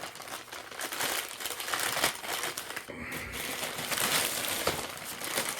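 Packaging crinkling and rustling as hands dig through a package to find what is inside, a continuous run of crackles.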